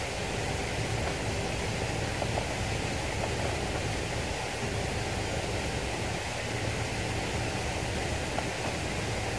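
Steady rushing hiss of flowing river water, even and unbroken.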